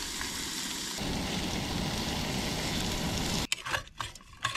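Fish fillets sizzling as they fry in a pan on a propane camp stove, a steady hiss that cuts off suddenly about three and a half seconds in, followed by a few light clicks.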